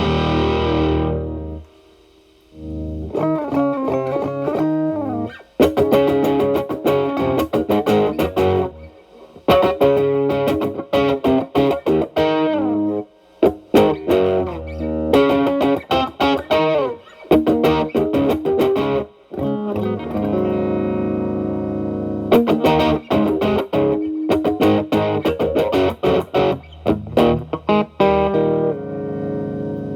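Electric guitar (Telecaster) through an E.W.S. Brute Drive distortion pedal at maximum gain into a Marshall Valvestate amp's clean channel. A thick distorted chord rings and cuts off about a second and a half in; then single-note lines and chords follow, the pedal cleaned up to a lighter crunch by lowering the guitar's volume.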